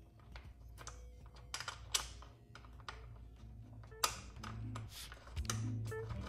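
Scattered small clicks and taps of metal and plastic as a bolt is handled and fitted by hand into a Talaria electric dirt bike's frame, over a low steady hum.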